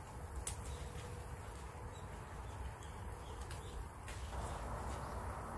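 Hand-picking of insulin plant (Costus igneus) leaves: faint leaf rustling with a couple of sharp snaps, one about half a second in and one about four seconds in, over a steady low rumble.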